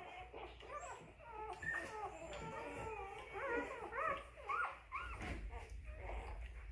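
A litter of newborn Weimaraner puppies whimpering and squeaking while nursing: many short, overlapping squeals that rise and fall in pitch, loudest around four seconds in.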